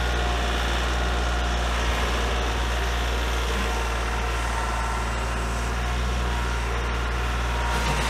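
A 35-horsepower Kioti compact tractor's diesel engine runs steadily at an even low pitch while the tractor shifts its front loader.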